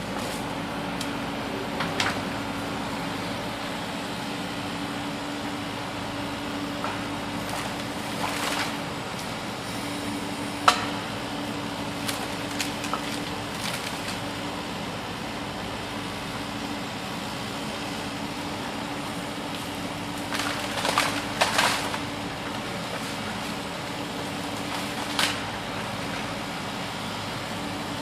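Steady motor hum from a toy excavator and dump truck at work, broken by occasional short clicks and clatters, with a burst of clattering about three-quarters of the way through.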